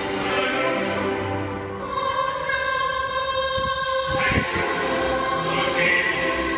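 Mixed choir singing in Vietnamese, holding long sustained chords, with the sound echoing in a large church; the chord changes about four seconds in.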